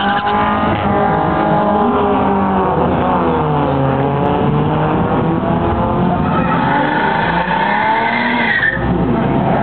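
Ford Mustang doing a burnout: the engine revs hard while the rear tyres spin and squeal. The revs dip about three to four seconds in, climb again, then drop off sharply near the end.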